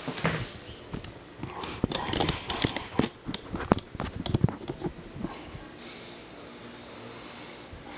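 A VHS cassette and its plastic case being handled: a quick run of clicks, taps and rattles, easing after about five seconds into a faint steady hum.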